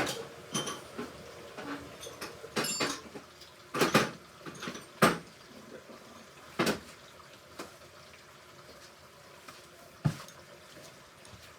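Hoover Ecologic Computer Washer 1300 washing machine in its rinse, the drum tumbling wet laundry with water sloshing and irregular knocks and clinks. The knocks come thickest in the first half and thin out after about seven seconds.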